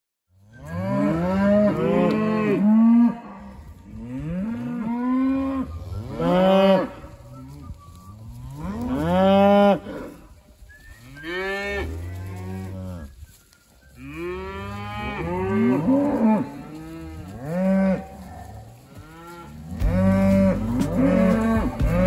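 Herd of Highland cattle mooing, one long call after another, several animals calling over one another.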